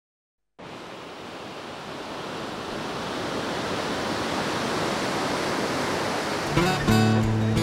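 Ocean surf: a steady wash of noise fading in after a brief silence and slowly growing louder. Acoustic guitar music comes in near the end.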